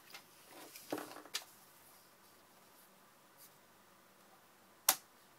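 Paper rustling as a sheet is handled and positioned in a sliding paper trimmer, then one sharp click near the end.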